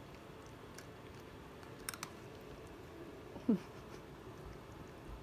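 A cat crunching a dry treat: a few small clicks. About three and a half seconds in comes a short squeak that drops quickly in pitch.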